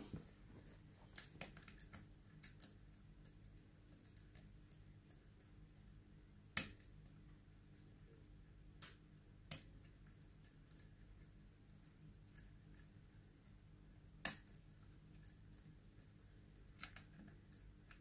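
Faint, scattered metallic clicks and ticks of a hook pick and tension wrench working the spool pins inside an ASSA Ruko Combi Plus lock cylinder, with two sharper clicks about six and a half and fourteen seconds in.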